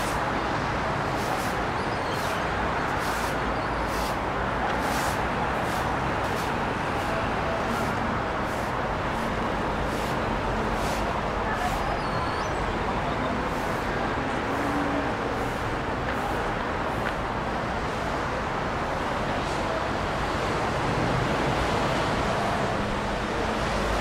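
Steady city traffic noise from cars and buses on snowy roads, with crunching footsteps on the snow-covered pavement about once a second that fade after the halfway point.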